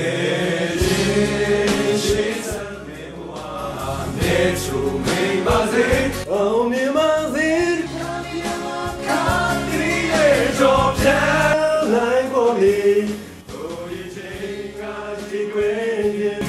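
A group of male voices singing a song together into a karaoke microphone over a backing track, dropping in loudness a little past two-thirds of the way through.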